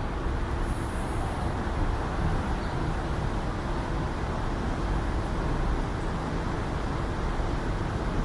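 Steady city street traffic noise: a constant low rumble of passing vehicles, with a faint steady hum.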